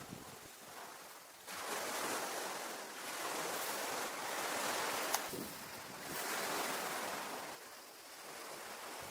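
Sea waves washing onto the shore in three surges, each swelling and fading over a couple of seconds, with a brief sharp click about five seconds in.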